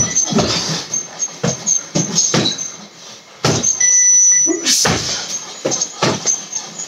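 Gloved punches thudding on a heavy punching bag in quick, irregular combinations. A short high electronic beep sounds a little under four seconds in: the reaction cue for the next strike.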